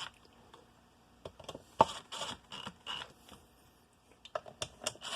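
Irregular light metal clicks and ticks from hand tools as the case bolts on a Yamaha YZ250 two-stroke crankcase are snugged up. They come in a loose run of small clicks, pause near the middle, then start again near the end.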